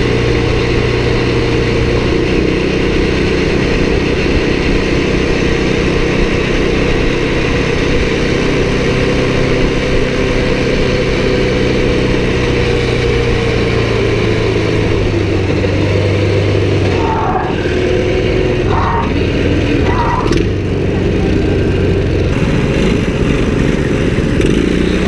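Small ATV engine running at a steady cruising speed, heard from the rider's seat with wind rushing over the microphone; the engine note eases off slightly about two-thirds of the way through.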